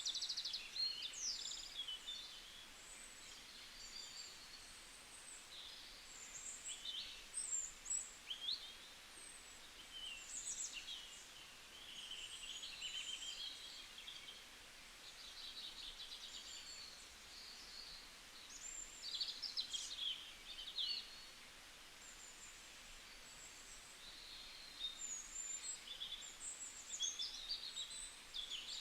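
Forest birdsong: several small birds chirping, trilling and whistling in irregular bursts over a faint steady hiss, with short lulls between phrases.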